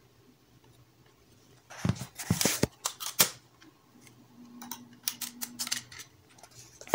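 Sharp clicks and rattles as a small amplifier's finned aluminium case is handled and the rubber bands holding it shut are pulled off. The clicks come in two clusters, starting about two seconds in.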